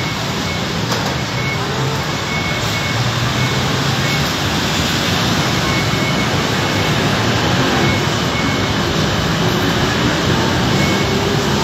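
Steady street traffic noise, with a faint high beep sounding on and off.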